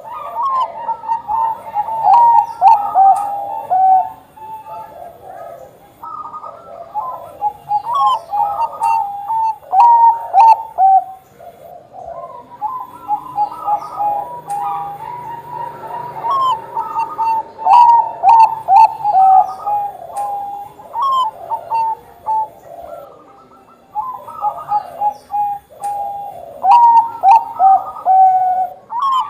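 Bangkok-strain zebra dove (perkutut bangkok) cooing: repeated phrases of short, quick coo notes, with brief pauses between phrases.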